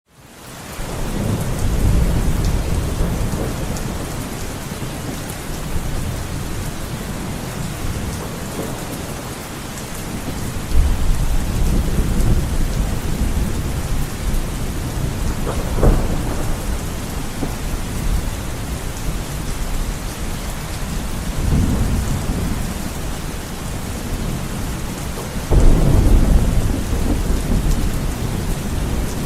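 Heavy rain beating steadily on a window, with wind, fading in at the start. Low rolls of thunder swell up several times, with a sharper crack about halfway through and the loudest roll near the end.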